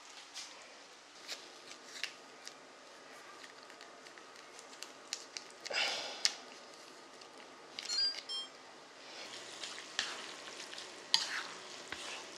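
Buldak yakisoba instant noodles sizzling in a frying pan, with scattered small clicks. About six seconds in, a louder sizzling swell comes as the sauce is squeezed onto the hot noodles. Near the end, chopsticks stir and clack against the pan.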